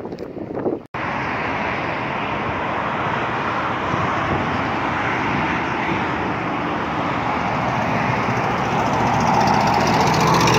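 Steady rush of highway traffic, passing vehicles blending into one continuous noise, growing a little louder near the end as a low hum joins it. It begins abruptly about a second in, right after a short, louder sound cuts off.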